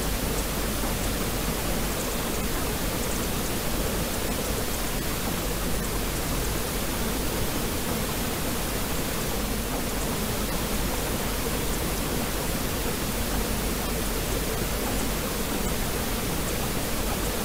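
Steady, unchanging hiss of pink noise spread evenly over all pitches, the audible bed of a silent subliminal track.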